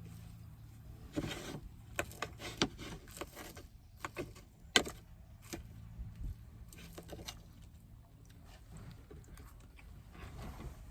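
Clatter of cooking utensils and dishes being handled: a string of irregular clicks and knocks, the sharpest a little under five seconds in, over a faint steady low hum.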